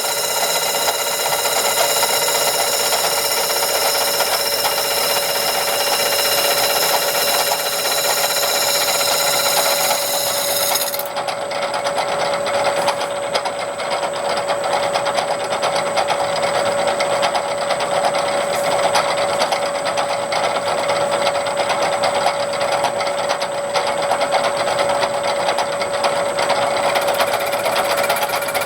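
A small machine running steadily with a rapid mechanical clatter and a steady hum; its higher whine cuts off suddenly about eleven seconds in while the clatter goes on.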